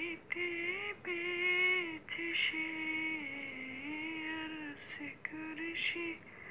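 A woman singing an Islamic gojol, a Bengali devotional song, solo with no instruments, in long held notes that bend between pitches and break briefly between phrases.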